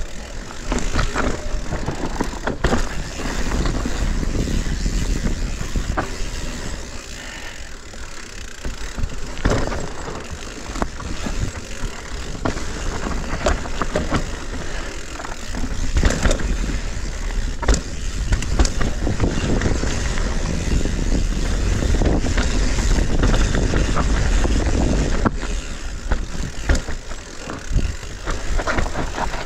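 Mountain bike riding down a rough, rocky trail: tyres rolling over dirt and rock with a low rumble, and the bike clattering with frequent sharp knocks as it takes hits.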